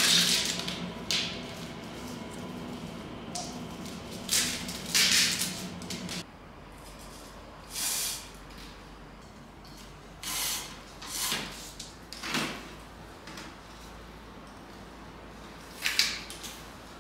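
Twine pulled through and drawn tight around a bundle of bamboo canes being lashed together, heard as a handful of short rasping swishes a second or two apart. Before this, a steady background tone stops abruptly about six seconds in.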